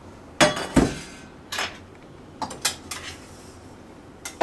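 Kitchenware being handled: pots, pans and utensils knocking and clinking in a handful of separate knocks, the loudest two within the first second.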